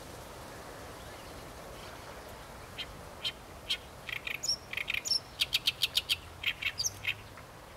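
Great reed warbler singing: a phrase of short, loud notes begins about three seconds in, speeds into a quick run of about six notes with a few high whistled notes mixed in, and stops shortly before the end.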